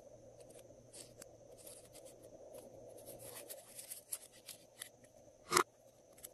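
Faint clicks and crackles of hands handling glitter slime and small clear plastic containers, with one sharper plastic click near the end.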